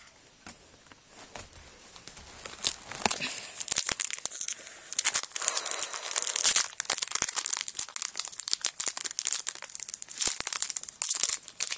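Trading-card pack wrapper being torn open and crinkled in the hands. The dense crackling starts a couple of seconds in and keeps going.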